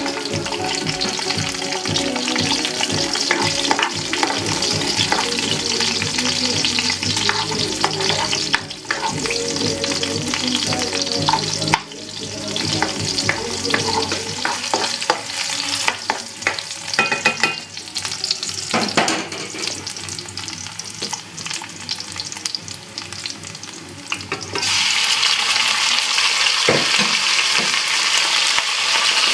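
Food frying in oil in a pan while being stirred: a steady sizzle with the clicks and scrapes of a utensil against the pan. About three-quarters of the way through, the sizzle turns louder and steadier.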